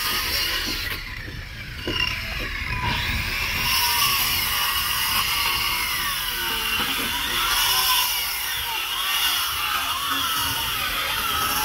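Corded electric circular saw cutting through thick timber planks, running loud and continuous, dropping off briefly about a second in before cutting again.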